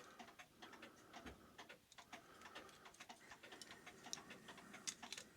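Faint, irregular light metallic clicks and ticks from handling a mantle clock movement with a letdown tool on the mainspring arbor.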